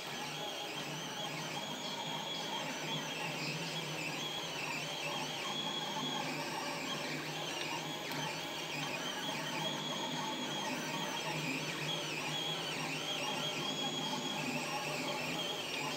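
FDM 3D printer printing, its stepper motors whining in tones that keep rising and falling in pitch as the print head moves, over a steady low hum.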